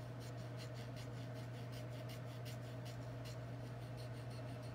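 Reed knife scraping the cane at the tip of a bassoon reed, backed by a plastic plaque. Quick, light strokes come several a second and die away about three and a half seconds in, thinning the fingernail area of the tip.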